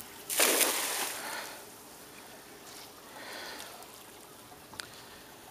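A weighted cast net splashing down on the lake surface about half a second in, the splash fading over about a second, followed by fainter water noise and a single sharp click near the end.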